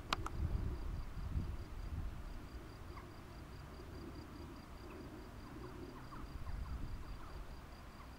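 An insect in the grass chirping steadily, a thin high note pulsing about four times a second. Under it runs a low rumble that is loudest in the first two seconds, with a couple of sharp clicks at the very start.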